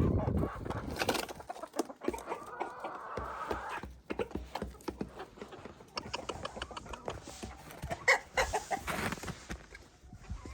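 Chickens clucking, with many short clicks and knocks among the calls.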